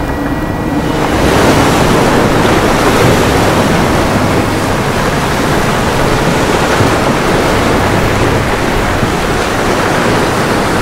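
Rushing, churning water sound effect for a ship going under: a loud, steady rush of water that swells about a second in and cuts off suddenly at the end.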